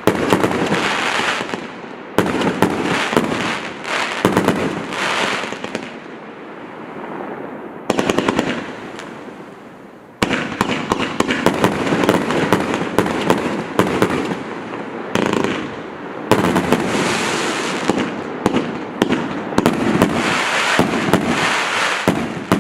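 Zeus Fireworks 'Knock Out' 105-shot compound cake, with 25 and 30 mm tubes, firing in rapid strings of shots and bursts with crackle. The firing eases off twice in the middle, then starts again suddenly about ten seconds in and keeps going.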